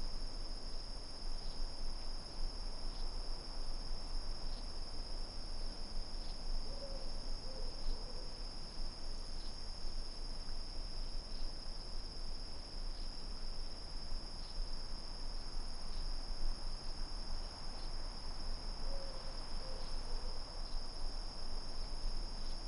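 Steady high-pitched chorus of night insects such as crickets, over a low rumble. Twice, about seven and nineteen seconds in, a short run of three low hooting notes.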